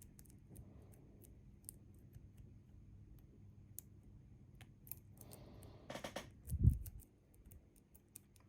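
Lock picks clicking and scraping in a Bi-Lock cam lock under light tension as its pins are probed one by one. There are many small, sharp ticks, a short scrape just after halfway, and a brief low thud about two-thirds of the way through, which is the loudest sound.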